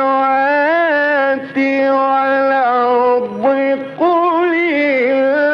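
A man's voice chanting the Quran in the melodic Egyptian mujawwad style, holding long notes with ornamented turns and pausing briefly twice for breath.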